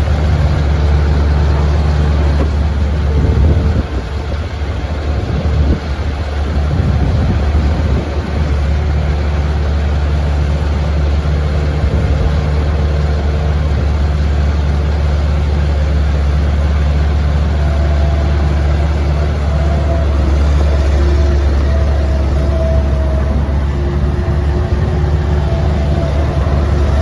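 Bobcat 763 skid steer loader's diesel engine running steadily, with a brief drop in level about four seconds in and again about six seconds in.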